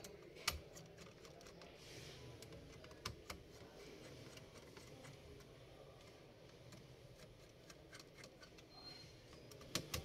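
Faint, scattered clicks of a screwdriver tip working the screws of a CPU heatsink bracket on a PC motherboard as they are tightened. The sharpest clicks come about half a second in, twice around three seconds in, and just before the end.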